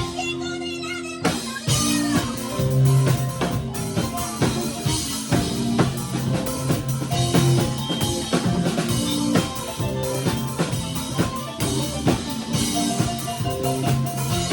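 Rock band playing with drum kit, bass and keyboard. After a brief break of held notes in the first second or so, the full band with drums comes back in.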